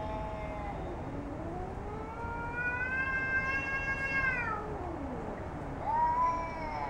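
Domestic cats yowling in a territorial standoff: long, drawn-out wails that rise and fall in pitch. One trails off just after the start, a long one rises and falls through the middle, and another begins near the end.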